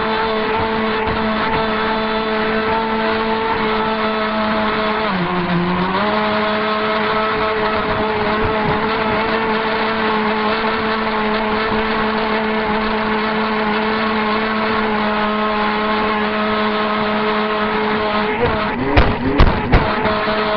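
Twin Storm RC boat's motors heard from on board, running at a steady high-pitched drone. The pitch dips briefly about five seconds in, then comes back up. Near the end come several loud thumps as the hull slams the water after a jump.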